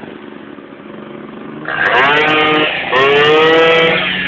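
Moped engine accelerating twice close by. Its pitch climbs, breaks off briefly about a second later, then climbs again and eases off near the end, over the steady running of a second engine.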